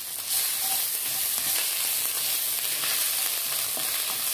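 Grated ginger sizzling in hot oil with fennel seeds and asafoetida in a kadai: a steady frying hiss, with a wooden spatula stirring and scraping the pan.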